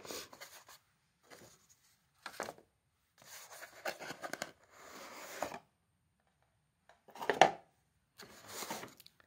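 Hands handling a cardboard gift box and its packaging: cardboard inserts sliding and scraping, with bursts of rustling, the loudest about seven seconds in.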